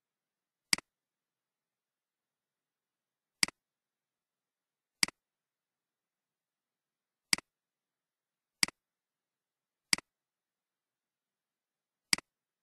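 Computer mouse clicking: seven sharp single clicks at uneven intervals, with silence between them.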